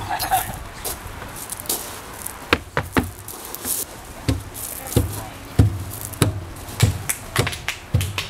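A series of sharp knocks or taps, irregular at first, then coming steadily about every half second to the end.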